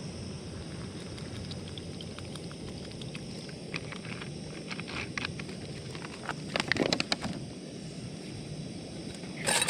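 Outdoor ambience with a steady hiss and faint high steady tones. Small clicks and knocks start a few seconds in and come more densely around two-thirds of the way through, then a louder rustle near the end.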